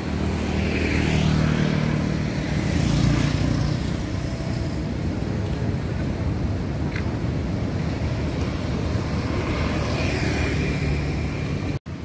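Street traffic: motor vehicles passing with engine hum and tyre noise, swelling about a second in and again near the end.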